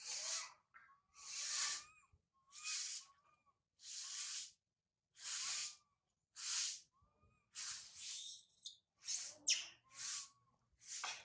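A baby macaque crying in a string of short, raspy, breathy cries, about one a second, many ending in a thin rising-and-falling squeal. It is the distress cry of an infant left alone by its mother.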